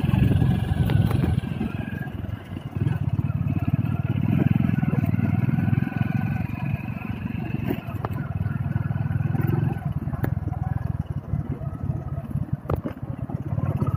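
Motorcycle engines running at low speed on a rough dirt track, with a few sharp knocks and rattles as the bike goes over stones.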